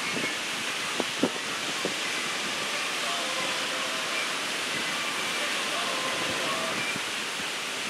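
Ocean surf breaking and washing up a beach, a steady rushing noise, with a few short knocks about a second in.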